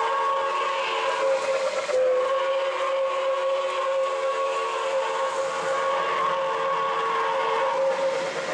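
O gauge model train's electronic sound system blowing a long, held chime-whistle chord of several steady tones, broken briefly about two seconds in, over the running noise of model trains on the track.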